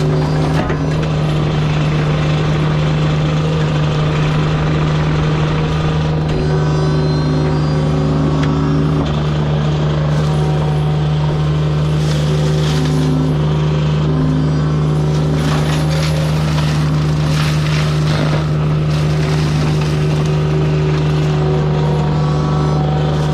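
Heavy-equipment diesel engine running steadily at high speed, with shifting whining tones over it. There are several spells of harsher noise about halfway through.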